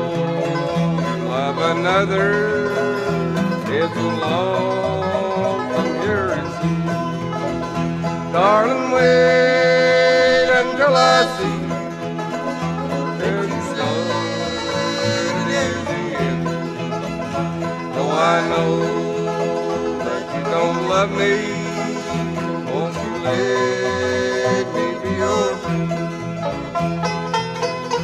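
Bluegrass band playing an instrumental break without singing: five-string banjo picking over acoustic guitar and upright bass, with fiddle lines sliding in pitch.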